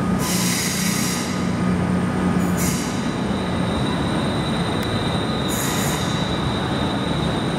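Class 221 Voyager diesel-electric train pulling away with its under-floor diesel engines droning steadily. There are three short bursts of hiss, and a steady high-pitched wheel squeal on the curved track sets in about three seconds in.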